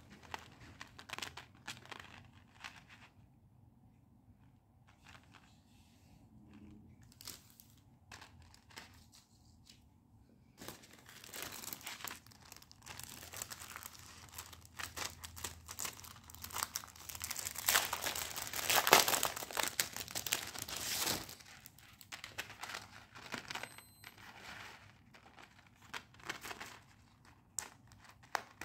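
Packaging being crinkled and torn open by hand. Scattered handling clicks and rustles come at first, then a dense stretch of crinkling and tearing through the middle, loudest about two-thirds through, before it thins back to occasional rustles and taps.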